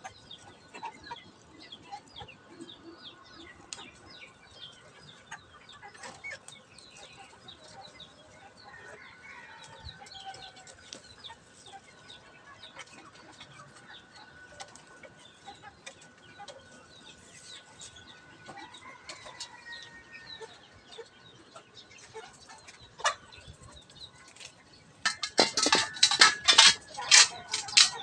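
Chickens clucking off and on, with a louder, dense flurry of calls and flapping about three seconds before the end.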